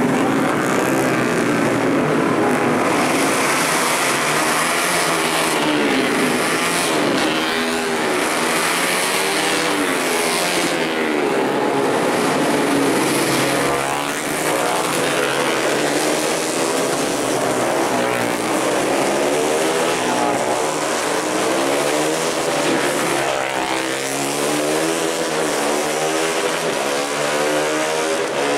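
Four-stroke 150 cc underbone racing motorcycles passing at full throttle, several engines at once, their pitch rising and falling again and again as the bikes accelerate, shift gears and brake for the corner.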